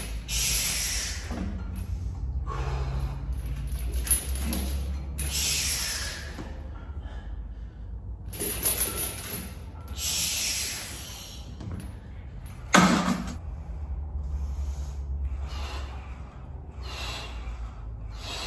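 A weightlifter's heavy, forceful breaths, hissing in and out about once every one to two seconds while he strains through bench-press reps, with one sharp clank about thirteen seconds in.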